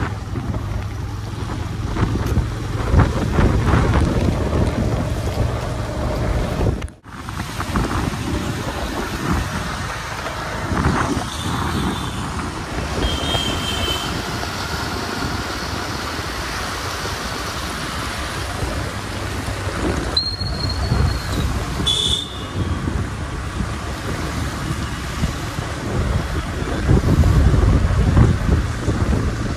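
Wind buffeting the microphone over the noise of traffic on a wet road, with a few short high beeps near the middle.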